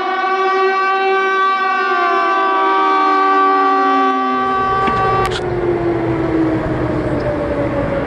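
Outdoor civil defense warning siren sounding a multi-tone chord during a siren test. About five seconds in the higher tones cut off and one tone keeps falling slowly in pitch as the siren winds down, with wind rumbling on the microphone.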